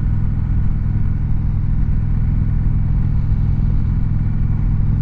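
A 2019 Indian Chieftain Dark Horse's air-cooled V-twin runs steadily as the motorcycle cruises along the road at an even speed.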